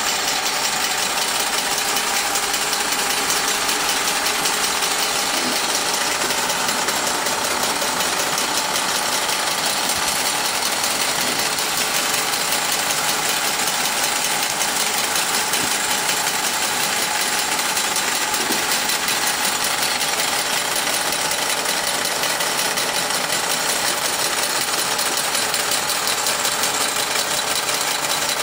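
A running Wilesco D141 toy steam engine and the old tin Wilesco workshop models it drives by pulleys and belts: a steady, fast mechanical clatter that sounds like a real workshop.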